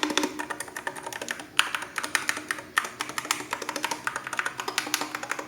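Keys of an Akko FUN60 Pro magnetic-switch keyboard being pressed quickly and irregularly, a rapid run of short clacks.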